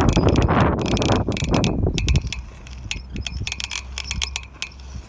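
Rapid, irregular clicking from a Nano as it freewheels: the strange noise it makes when coasting. A loud rushing noise drops away about two seconds in, leaving the clicking clearer.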